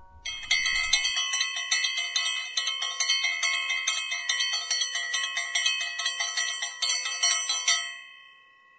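Music of bright, bell-like chimes struck in a quick, even rhythm of about four strikes a second, stopping about eight seconds in.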